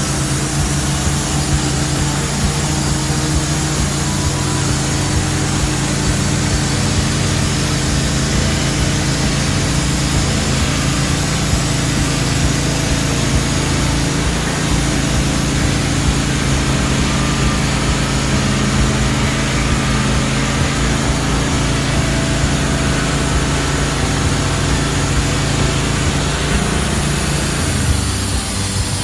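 Wood-Mizer LT15 portable band sawmill running steadily under power, its engine hum mixed with a dense hiss, changing slightly near the end.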